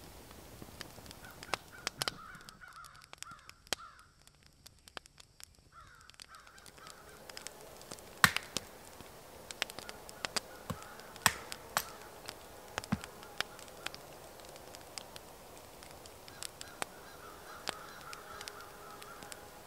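Small campfire crackling with scattered sharp pops, the loudest two about 8 and 11 seconds in. A bird calls in a few short bouts in the forest.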